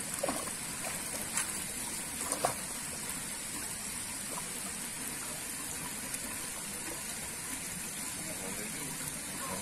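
Pond water splashing and churning steadily, with a few short, louder sounds in the first two and a half seconds.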